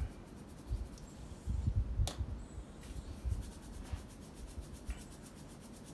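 Nitrile-gloved hands rubbing dry seasoning into a raw brisket: soft, irregular rubbing and handling sounds, with one sharp click about two seconds in.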